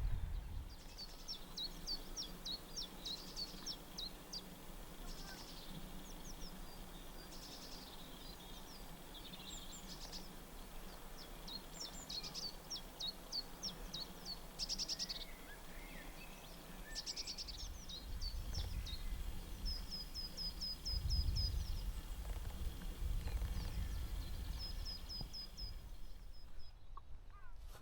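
Small birds calling and singing in short high chirps and trills, with runs of quick repeated notes about two thirds of the way through and again near the end, over a low rumbling background that grows stronger in the second half.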